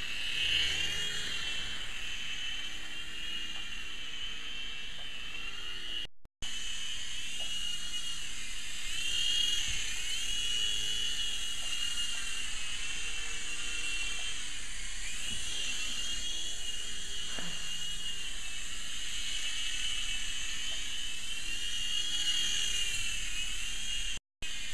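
Small remote-control toy helicopter flying, its electric motor and rotors making a steady high whine that dips and rises in pitch every few seconds as the throttle changes.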